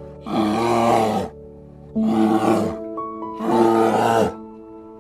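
A big cat roaring three times, each call rough and just under a second long, about one and a half seconds apart, over steady background music.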